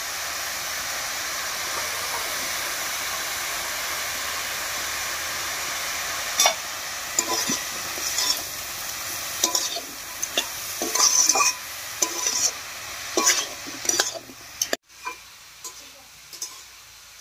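Shredded cabbage and vegetables sizzling steadily in oil in a metal karahi. From about six seconds in, a steel spatula scrapes and knocks against the pan in irregular strokes as the vegetables are stirred. The sound drops off suddenly near the end.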